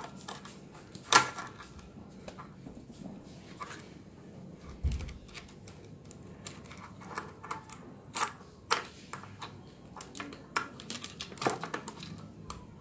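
Irregular light metallic clicks and clinks of a cam timing sprocket and timing chain being handled and seated on the camshaft of a Yamaha Mio scooter engine, with a small pick tool tapping against the metal. A dull low thump about five seconds in.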